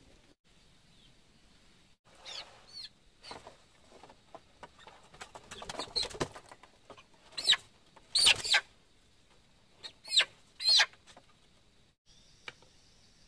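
Chickens inside a coop giving a series of short, sharp squawks, loudest in the second half, with some scuffling in between. Near the end a steady high insect drone takes over.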